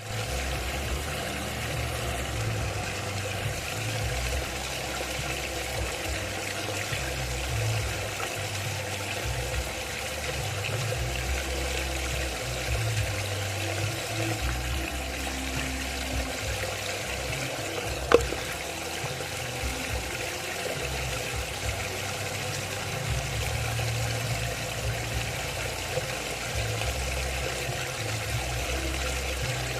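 Water swirling steadily in a whirlpool vortex tank, over a low uneven rumble and a faint steady hum. One sharp click about eighteen seconds in.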